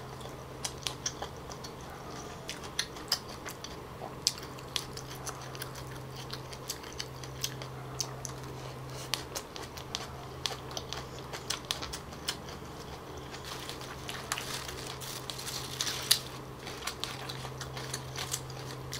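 Close-miked chewing of a leaf-wrapped bánh xèo: many small, sharp mouth clicks and smacks, denser near the end, over a faint steady low hum.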